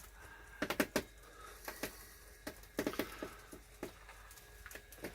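N gauge model DMU running round the layout track: a string of light, irregular clicks, several in quick pairs.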